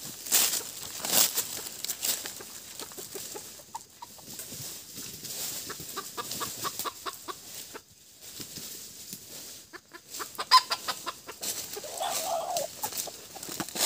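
Red junglefowl rooster clucking, with a quick run of clucks about six seconds in and a longer call near the end, among sharp rustles of dry leaf litter.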